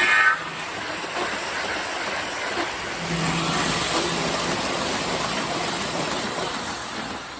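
MTH Premier O-gauge model of an NJ Transit AEM-7 electric locomotive running on the layout: a steady rushing running sound from its sound system and wheels on the track. A horn note cuts off just after the start, and the sound fades a little near the end.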